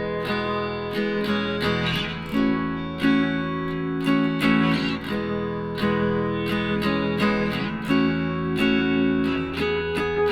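Background music led by a plucked acoustic guitar, notes falling in a steady rhythm about twice a second.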